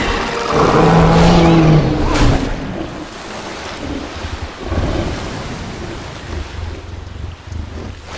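Film sound effects of a giant gorilla wrestling a giant squid in a river. A deep creature growl comes in the first two seconds, then heavy water splashing and churning over a low rumble.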